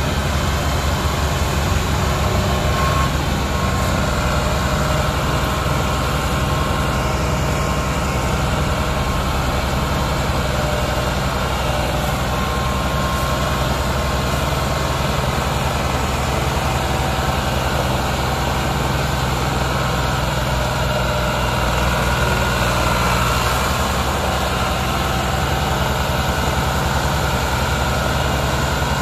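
Ford 3610 tractor's three-cylinder diesel engine running steadily under heavy load while pulling an overloaded trolley of sugarcane.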